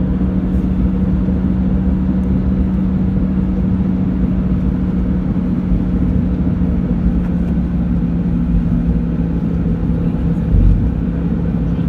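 A steady engine hum: a constant low drone over rumble, with a low buffet of wind on the microphone near the end.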